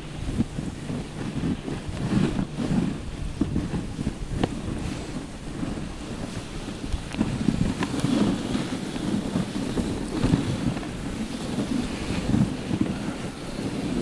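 Wind buffeting the microphone on a moving dog sled, with the sled gliding over snow: a rough, rushing noise that swells and fades unevenly.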